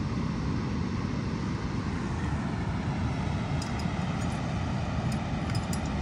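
Steady roar of water pouring over a dam spillway, mixed with wind buffeting the microphone. A few faint clicks around the middle and near the end.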